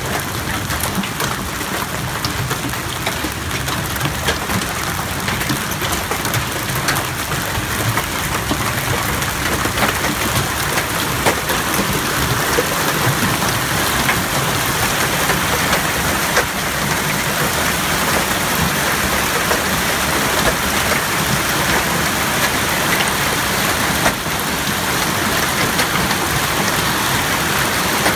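Hailstorm: hail and rain coming down hard, a dense steady hiss peppered with the sharp ticks of individual hailstones striking. It grows a little heavier about a third of the way in.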